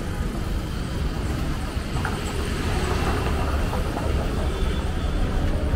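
Steady low outdoor background rumble with a light hiss, no single distinct event standing out.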